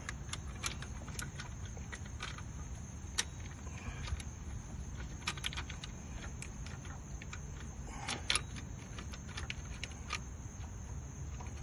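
Irregular light metal clicks and taps of hand tools and bolts being worked in a car's engine bay while the alternator and its adjuster bolt are lined up for fitting, over a steady low hum.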